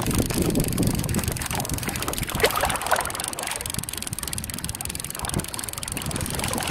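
Wind buffeting the microphone aboard a small sailing kayak on open water, with a few light knocks.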